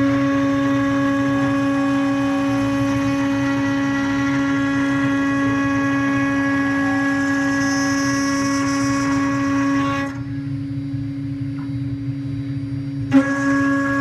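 Spindle of an Acctek 6060 metal CNC router milling an aluminium plate: a steady, loud high-pitched whine over a rough rumble. About ten seconds in the higher whine drops away and the sound gets a little quieter, then comes back with a short sharp knock near the end.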